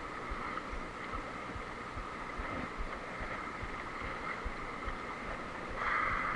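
Small fishing boat's engine running steadily with a high whine, and wind buffeting the microphone in low thumps; the engine grows a little louder near the end.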